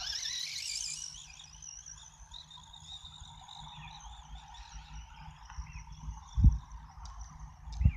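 Battery-powered remote-control car's electric motor whining up in pitch over the first second, then a fainter high whine, over a low rumble of wind on the microphone. Two dull thumps near the end.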